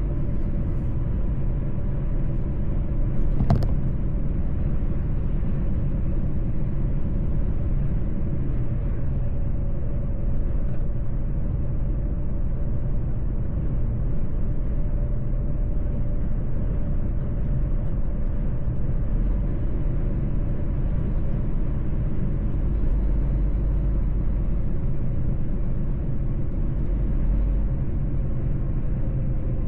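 Mercedes-Benz truck driving along a road: a steady low engine and road rumble with a faint steady hum over it, and a single sharp click about three and a half seconds in.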